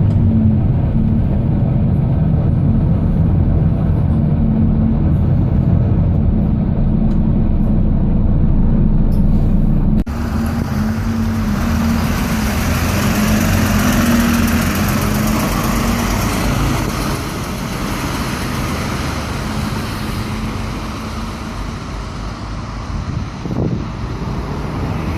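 Interior running noise of a Volvo B9TL double-decker bus: a steady low engine drone with a humming tone. About ten seconds in, an abrupt change brings in a broader rushing hiss of road and tyre noise over the engine, which eases off toward the end.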